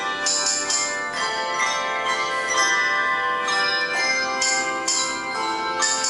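Handbell choir playing: many tuned handbells struck in turn and left ringing, their notes overlapping. Short bursts of bright jingling come in near the start and again several times in the second half.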